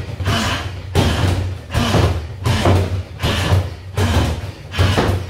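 Bare-foot front kicks landing on a free-standing punch bag, a heavy thud about every two-thirds of a second.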